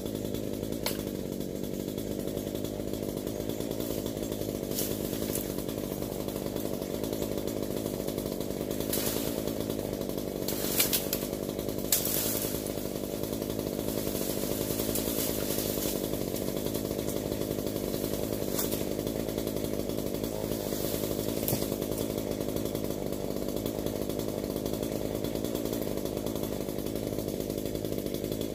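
Small two-stroke gas chainsaw running at a steady speed, without revving. A few sharp knocks sound about a third of the way through.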